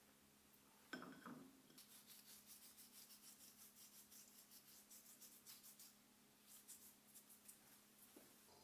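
Faint, quick rubbing strokes, about three a second, following a soft knock about a second in; they pause briefly and start again near the end.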